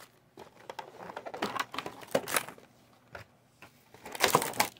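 Foil booster-pack wrappers rustling and crinkling as the packs are handled and lifted out of a plastic box tray, with a scatter of light taps and clicks. The loudest rustling comes near the end.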